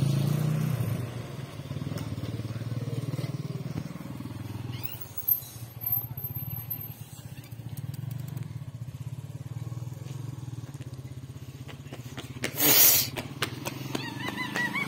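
Motorcycle engine running steadily at low revs, with a brief loud burst of noise a little before the end.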